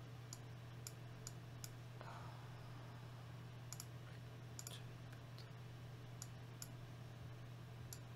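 Computer mouse clicking: about ten sharp, scattered clicks over a steady low hum.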